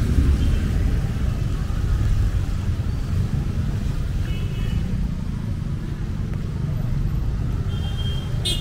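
Outdoor city ambience dominated by a steady, churning low rumble, with a lighter hiss above it. Brief high chirps come about four and a half and eight seconds in, and there is a sharp click near the end.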